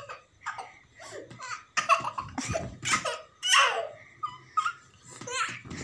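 A young boy laughing and babbling in short, separate bursts.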